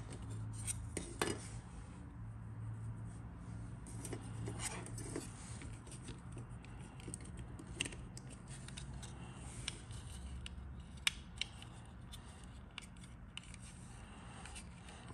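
Plastic fuselage halves of a 1/48 scale model aircraft kit handled and pressed together by hand: scattered light clicks and taps of hard plastic with some rubbing.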